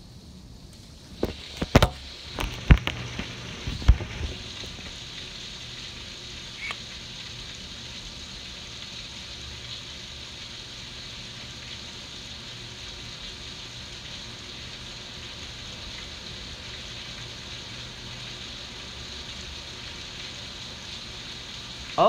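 Heavy rain pouring steadily on a screened pool enclosure and flooded patio, an even hiss that grows louder about a second in. A few sharp knocks and clicks come between about one and four seconds in.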